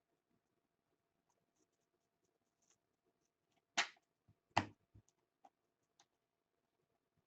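Hands handling trading cards and their packaging: faint rustles and ticks, then two sharp taps or clicks a little under a second apart midway, followed by a few lighter ticks.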